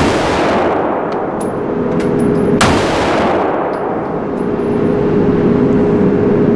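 Gunshots on an indoor shooting range: two shots about two and a half seconds apart, the first right at the start, each ringing on in the room's echo. A steady hum runs underneath.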